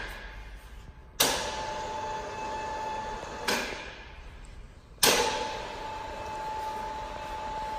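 Volz FUS 33 toolroom milling machine's spindle motor switched on and off at the control panel. A sharp clunk comes about a second in, then a steady whine; another clunk midway and the whine fades. A third clunk about five seconds in, and the machine runs on with the steady whine.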